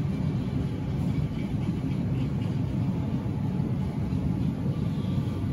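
Steady low rumble and hum of background noise in a large store aisle, with no distinct events.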